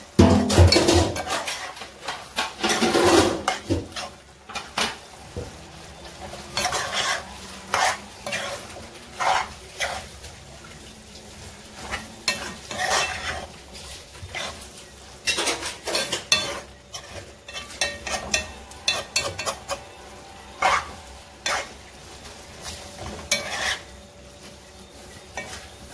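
A metal spoon scraping and clinking against a frying pan as chopped fish and vegetables are stirred, over a low sizzle of frying. The scrapes come irregularly, several a second at times, and are loudest in the first few seconds.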